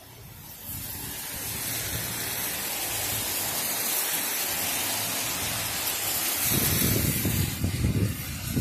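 Car tyres hissing through water on a rain-soaked road, a steady spray swish that builds over the first couple of seconds as traffic approaches. A low rumble joins about six and a half seconds in.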